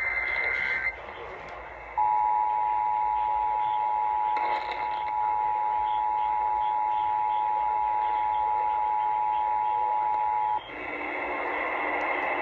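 Emergency Alert System broadcast tones: the tail of a screechy SAME digital header burst ends about a second in. After a short gap of hiss, the two-tone EAS attention signal starts and holds steady for about eight and a half seconds. It cuts off into radio static.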